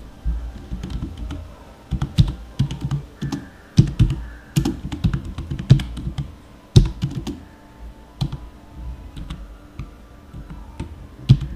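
Typing on a computer keyboard: a run of uneven keystroke clicks with a few short pauses.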